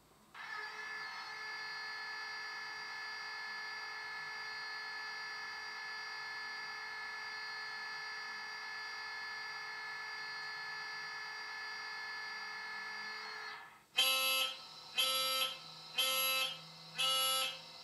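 Sound file of an ESU DCC decoder in a Hornby Class 67 model locomotive, played through the model's small speakers: a steady electrical whine made of several held tones. It cuts off suddenly and is followed by a buzzer-like warning tone pulsing about once a second.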